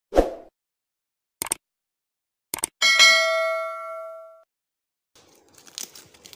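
Subscribe-button animation sound effect: a short pop, two quick clicks, then a bright bell ding that rings out for about a second and a half. Near the end, faint rustling of corn husks being handled.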